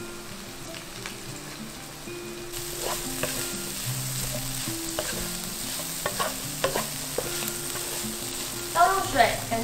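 A taro, dried tofu and mushroom filling stir-frying in oil in a wok with a wooden spatula: a steady sizzle with scattered scrapes and taps of the spatula on the pan. The sizzle grows louder about two and a half seconds in.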